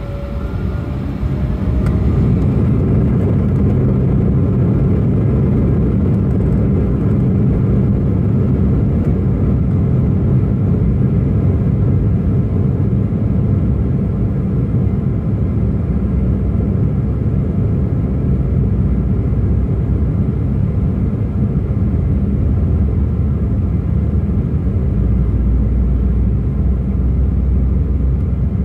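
Embraer E175 jet engines heard from inside the cabin, coming up to takeoff power about two seconds in, then a steady loud low rumble of engines and wheels during the takeoff roll. The rumble deepens near the end as the aircraft gathers speed.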